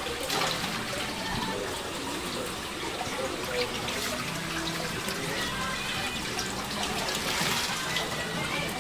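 Water trickling and splashing in a live seafood tank as hands work in it, with water streaming and splashing off a mesh bag lifted out near the end.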